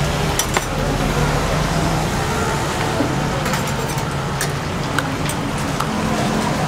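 Steady street background with a low hum, over which metal tongs click a few times against a wire rack as fried chicken gizzards are picked up.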